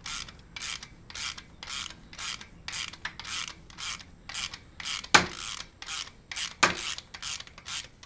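Ratchet clicking in short, even strokes about three a second as it backs off a valve spring compressor, releasing the tension on a valve spring on a B18C cylinder head. Two sharper metallic clicks stand out about five and six and a half seconds in.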